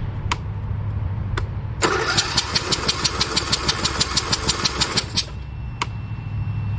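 Troy-Bilt Pony riding mower's starter cranking the engine for about three seconds, a fast even chugging that stops without the engine ever catching: it turns over but gets no fire, which the owner puts down to no spark. A steady low hum runs underneath, with a few sharp clicks before and after the cranking.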